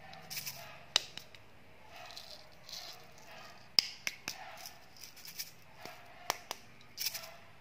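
Irregular sharp clicks and taps with soft rustling as a small can-shaped candy container is handled and turned over in the fingers, the loudest click a little under four seconds in.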